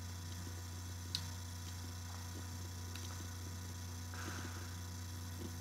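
Steady low electrical hum, like mains hum, with one faint click about a second in.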